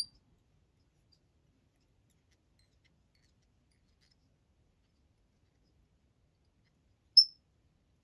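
Two sharp, high metallic clicks from small fly-tying scissors: one at the start and one about seven seconds later, with near silence between them.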